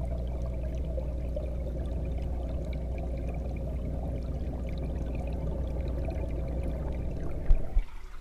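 Steady low hum and water rush of an aquarium's pump and filter flow, heard underwater and muffled through the camera's waterproof housing. Near the end there is a sharp knock, then the hum cuts off as the camera is lifted up through the water surface.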